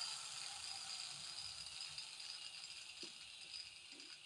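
A steady, faint high-pitched hiss that slowly fades, with two light knocks near the end as a small metal engine cylinder head is handled.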